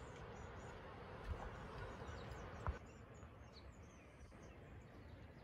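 Woodland birds chirping and singing faintly over a steady rushing hiss, which drops away a little under three seconds in. Two soft thumps come through, the louder just before the hiss fades.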